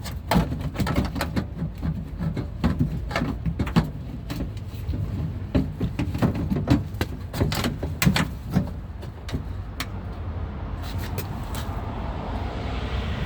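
Repeated clicks and knocks of a car door latch assembly and its rod being worked into the door shell behind the window run channel, over a steady low rumble. The clicking stops about ten seconds in, and a soft rushing noise rises near the end.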